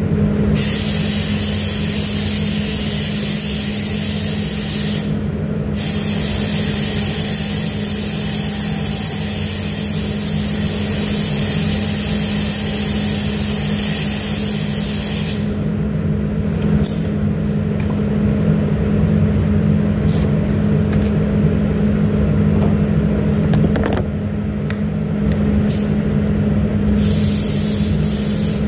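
Compressed-air spray gun hissing as it sprays a car door, over a steady low hum in the paint booth. The hiss stops for a second or two a few times, about five seconds in, around fifteen to seventeen seconds and around twenty-four to twenty-seven seconds, as the gun's trigger is let go.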